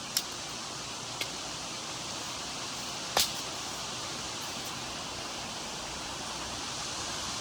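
Steady outdoor hiss with three sharp clicks or snaps, the loudest about three seconds in.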